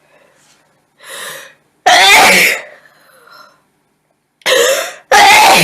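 A woman sneezing twice, each sneeze coming after a drawn-in breath. The in-breath before the second sneeze is nearly as loud as the sneeze itself.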